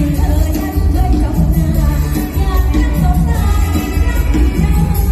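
Live mor lam band playing loud through a large PA with a woman singing the lead, heavy bass underneath.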